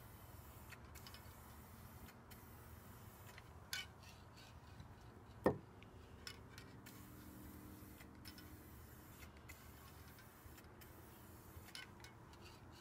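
Faint, scattered clicks and taps from handling a can of polyurethane finish, with one sharper click about five and a half seconds in and a smaller one about two seconds before it.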